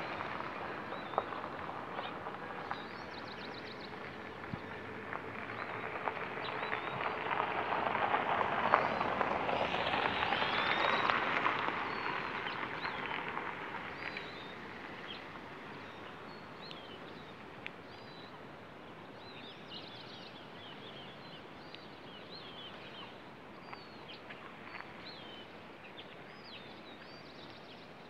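Small birds chirping in short, high calls over a steady outdoor hiss. A broad rushing swell builds and fades in the first half.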